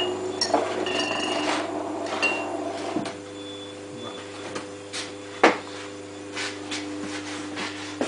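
Refrigerator compressor, rigged as a homemade air compressor, running with a steady hum, while several sharp clinks and taps sound over it, the loudest about five and a half seconds in.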